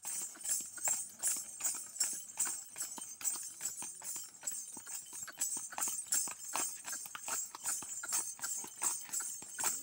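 A horse stamping and stepping in place on a gravel lane, its hooves striking in a quick uneven rhythm while the bells on its ankles jingle with each step, as it works through a dance gait.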